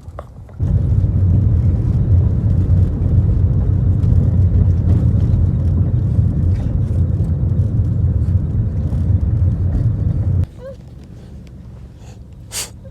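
Car road and engine noise heard from inside the cabin while driving: a loud, steady low rumble that starts suddenly and cuts off suddenly near the end, followed by a quieter stretch with one brief high squeak.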